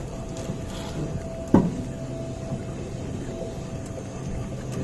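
Car jack being cranked up by hand with its L-shaped handle to lift the car, making small metal knocks and one sharp clank about a second and a half in, over a low steady hum.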